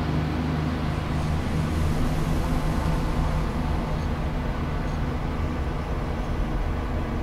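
A steady low droning hum, several deep tones held evenly throughout, over a faint hiss.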